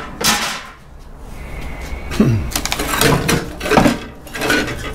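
Irregular metallic clattering, knocking and scraping as an air conditioner's copper-aluminium radiator coil and its sheet-steel frame are worked loose and lifted by hand.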